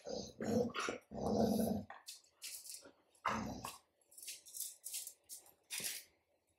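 Golden retrievers growling as they play-wrestle: several short rough growls, the longest and loudest about a second in, with rustling between them.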